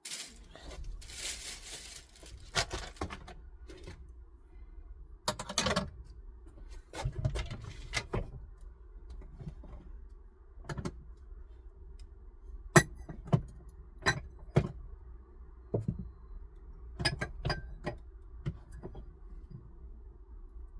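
Small hard objects being handled and put down while a van's interior is cleaned and tidied: a string of separate clicks, knocks and light clatter, with a longer rustling stretch near the start and another about five seconds in.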